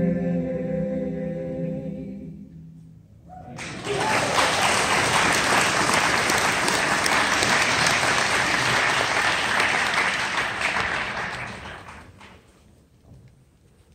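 The song's final held note fades out, then a church congregation applauds, starting abruptly about three and a half seconds in and dying away after about eight seconds.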